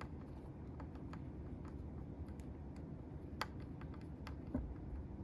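Scattered light clicks and ticks at irregular intervals, one sharper about three and a half seconds in: small parts of a folding knife and tools being handled during reassembly.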